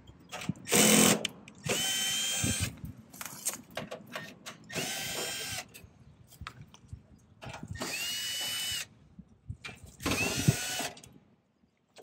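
Cordless drill/driver backing out the sheet-metal screws of an air conditioner condenser's electrical access panel: five short runs of about a second each, several starting with a brief rising whine as the motor spins up.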